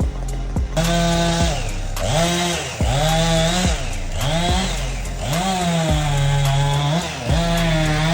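Chainsaw cutting wood from a large Chinese elm. The engine's pitch sags and climbs back up several times as it revs and bogs down in the cut.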